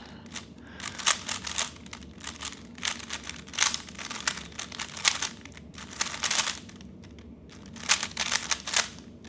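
3x3 Rubik's Cube being turned rapidly by hand: irregular runs of quick plastic clicks and clacks as the layers snap round.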